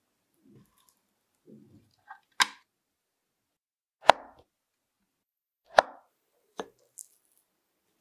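A knife slicing through a set no-bake matcha cheese mousse cake and knocking against the wooden board beneath: a few sharp knocks, the two loudest about a second and a half apart in the middle. Before them come soft low scuffs as the metal cake tin is handled on a knitted mat.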